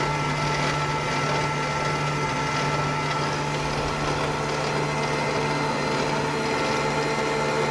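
Warn electric winch running steadily on its remote, spooling synthetic rope onto the drum: a steady motor whine over a low gear hum.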